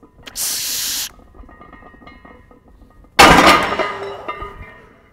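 A lifter's forceful breathing during a heavy barbell bench-press set: a sharp, steady hiss of breath about a third of a second in, lasting under a second. Then a much louder sudden burst at about three seconds that tails off over a second and a half.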